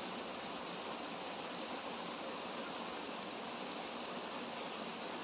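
A small, shallow stream running steadily over rocks, an even wash of water sound.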